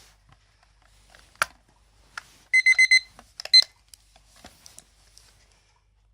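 Seiko electronic alarm clock beeping: a quick run of four short, high, steady beeps about two and a half seconds in, then a shorter burst of beeping a moment later, and then it stops. A single sharp click comes a little before, with light handling clicks around it.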